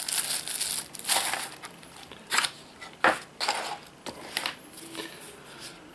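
Clear plastic packaging bag being crumpled, then cardboard boxes shuffled and set down, with a few sharp light knocks.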